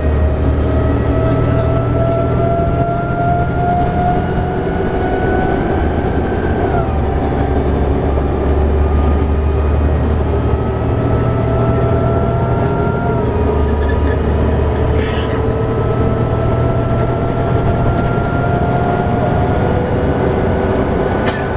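Cabin sound of a 2011 New Flyer D60LFR articulated bus's Cummins ISL9 diesel and Allison B500R transmission under way, with a whine that climbs slowly in pitch and drops sharply near the start, about 7 seconds in and about 13 seconds in, as the transmission shifts up. Steady low rumble of engine and road noise underneath, with a brief click about 15 seconds in.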